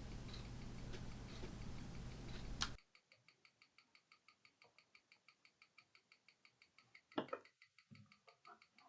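Faint room hiss with a few soft ticks for the first few seconds, then it cuts to near silence, broken about seven seconds in by a couple of short clicks and a few fainter ones after.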